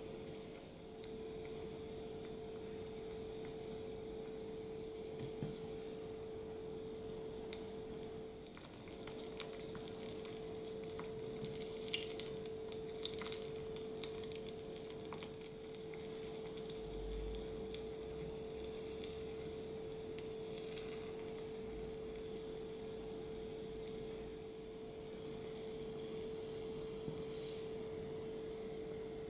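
Breaded pork cutlet deep-frying in a small pan of hot oil: a steady sizzle full of crackling pops, busiest around the middle while the cutlet is turned with chopsticks. A steady low hum runs underneath.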